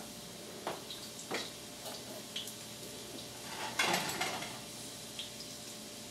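Gray squirrel eating bread: scattered small crackles and clicks of chewing and of it shifting about, with a louder rustling cluster about four seconds in as it turns and bends down, over a faint steady hum.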